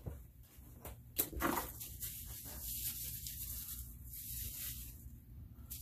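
Small clear plastic zip bag being handled and opened, crinkling and rustling softly for about three seconds, with a few light clicks and taps near the start.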